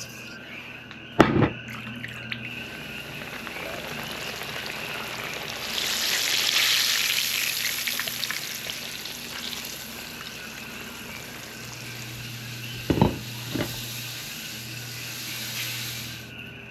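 Mahi fish frying in a pan: a steady sizzle that swells for a few seconds in the middle. There is a knock about a second in and a couple more near the end.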